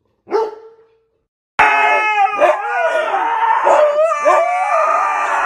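A dog gives one short bark, then after a second's pause a husky howls loudly and continuously, its pitch wavering up and down.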